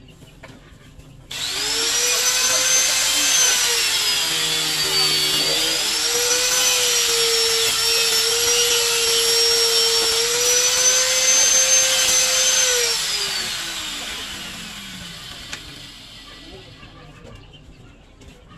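Handheld electric drill switched on, running at full speed with a steady whine that sags a little under load, then released about thirteen seconds in and winding down, its pitch falling as the chuck coasts to a stop.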